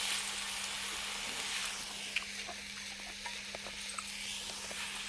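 Meat and green peppers sizzling on a hot grill plate: a steady hiss with scattered small pops. A faint steady low hum runs underneath.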